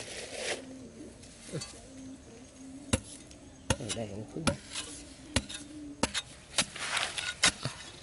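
A hand digging tool striking and scraping into hard, dry soil: a series of sharp, irregular strikes beginning a few seconds in and coming quicker near the end.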